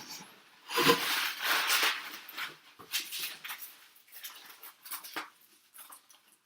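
Cardboard shipping box being opened and its packing handled: irregular rustling, scraping and tearing noises, loudest about a second in, then lighter handling sounds that cut off abruptly near the end.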